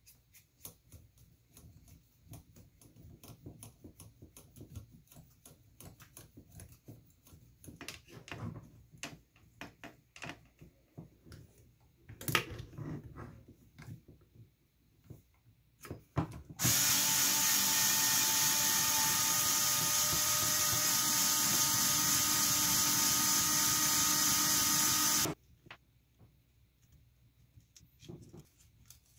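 Small clicks and taps of plastic and metal kit parts being handled, then a cordless drill/driver running steadily at one speed for about eight seconds, starting and stopping abruptly, followed by more light clicks.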